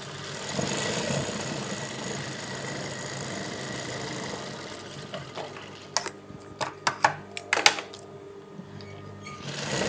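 Juki industrial sewing machine stitching a seam, running steadily for about five seconds, then several sharp clicks over the next two seconds.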